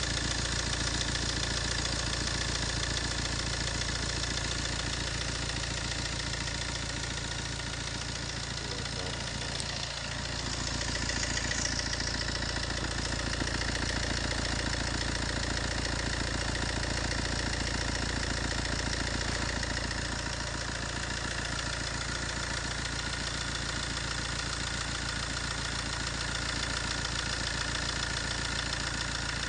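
Fiat 1.3 Multijet four-cylinder turbodiesel idling with a steady timing-chain noise. The chain is worn out and its tensioner piston has reached the end of its travel, so the chain needs replacing.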